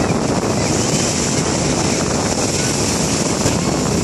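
Wind on the microphone over the steady wash of small waves breaking in shallow surf.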